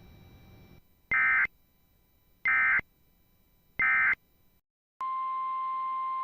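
Three short, evenly spaced bursts of EAS (SAME) digital data tones from NOAA Weather Radio, the end-of-message code closing the previous alert. About five seconds in, the steady 1050 Hz NOAA Weather Radio warning alarm tone starts.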